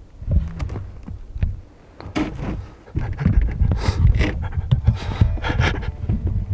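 A man breathing hard in quick, excited breaths right after shooting a deer with a bow, still shaking from the adrenaline. Low rumbling handling noise runs under the breaths.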